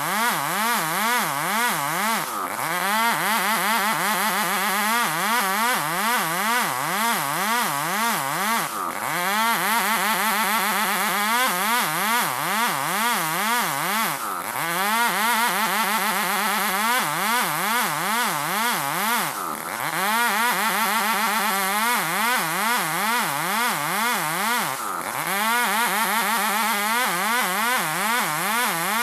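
Two-stroke chainsaws ripping lengthwise through a Bornean ironwood (ulin) log. The engine pitch swings up and down two or three times a second as the saws rock through the cut, easing off briefly every five or six seconds.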